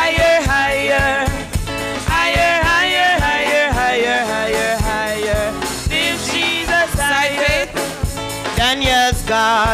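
Gospel chorus sung by voices over a band, with a steady drum beat.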